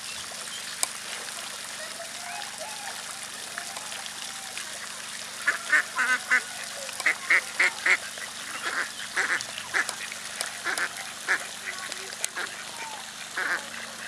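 Park mallards (domestic Anas platyrhynchos) quacking in runs of short, rapid quacks, starting about five seconds in and coming in bursts on and off until near the end.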